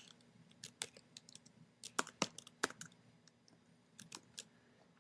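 Faint typing on a computer keyboard: short runs of sharp key clicks with pauses between them.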